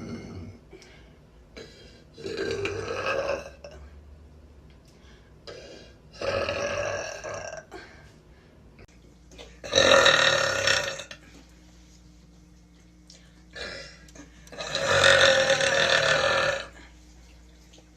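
A woman burping loudly four times, each burp lasting a second or more. The third, about ten seconds in, is the loudest, and the last, about fifteen seconds in, is the longest.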